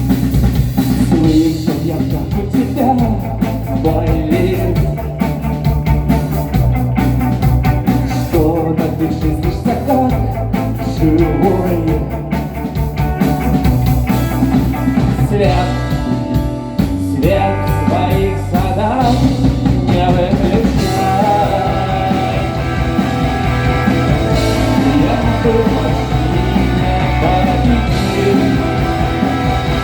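Rock band playing a song: guitars and bass over a steady beat, with a wavering melodic line on top.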